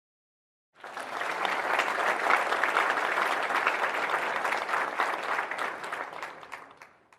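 A crowd applauding: dense clapping from many hands starts abruptly about a second in, holds steady, then tapers off and fades out near the end.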